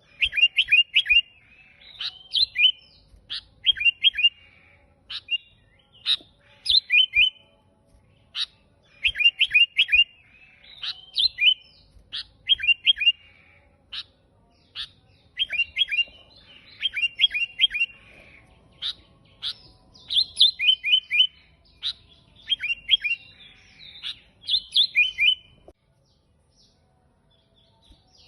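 Sooty-headed bulbul (kutilang) singing vigorously: repeated short phrases of quick, clear whistled notes, a phrase every second or so, pausing near the end.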